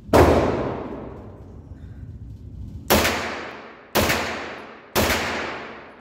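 Grand Power Stribog 9mm carbine, fitted with a Volker Precision four-port muzzle brake, firing single shots. One shot comes at the start, then after a pause of nearly three seconds three more follow about a second apart, and another comes right at the end. Each loud shot echoes and dies away slowly in the indoor range.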